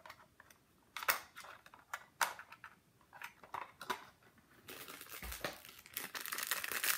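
Plastic toy packaging being handled and opened: scattered small clicks and crackles, then steady crinkling from about two-thirds of the way in as a wrapped accessory is unwrapped.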